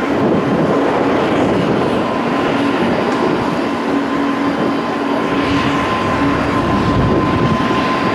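Jet airliner engines running steadily, a loud even rush with a held whine.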